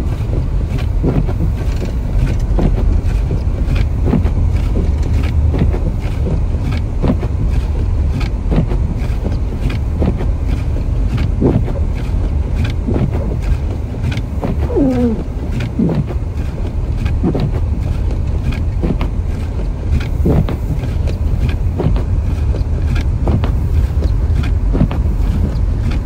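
Inside a moving car on a snowy road: a steady, loud low rumble of engine and tyres, with the windshield wipers knocking at each stroke about once a second. A short wavering squeak comes about halfway through.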